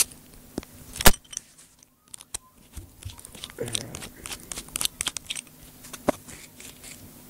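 Small screws and plastic and metal diff parts clicking and rattling by hand as a radio-controlled car's differential is unscrewed and opened. There are a few sharp clicks, with a run of quick light ticks in the middle.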